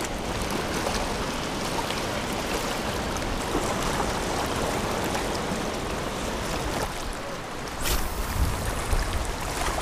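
Small ocean waves washing and lapping against lava rocks, a steady hiss of moving water. Near the end, low rumbling buffets hit the microphone.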